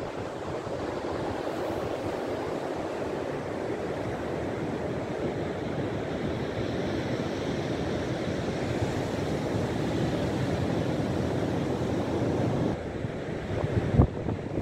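Ocean surf breaking on a sandy beach, a steady wash of waves with wind on the microphone. Near the end come a few sharp low thumps.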